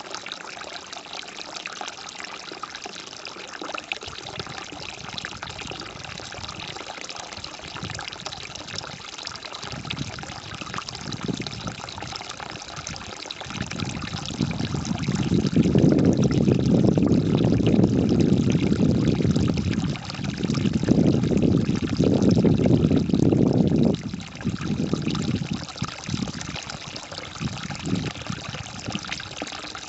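Running water trickling and splashing steadily, with a much louder low rush for about ten seconds from around the middle, easing off near the end.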